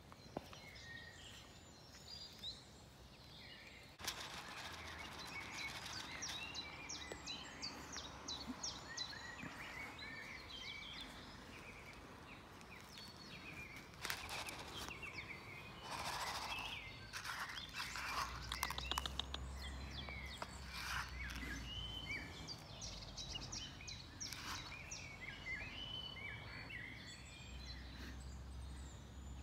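Many small birds chirping and twittering over a steady outdoor noise haze. There is a louder surge of noise around the middle, and a low rumble comes and goes.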